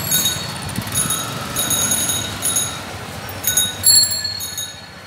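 Cycle rickshaw bells ringing again and again in quick short dings, over a low traffic rumble.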